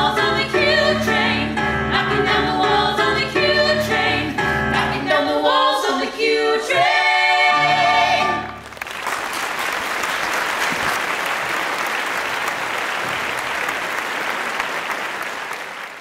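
Three voices singing the closing lines of a musical-theatre number over keyboard accompaniment, the keyboard dropping out about five seconds in and the singers finishing on a long held chord. About eight and a half seconds in the audience breaks into applause, which fades out at the end.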